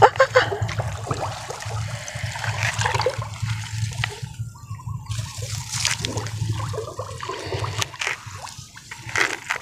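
Shallow lake water sloshing and splashing irregularly around a person wading through it, over a steady low rumble.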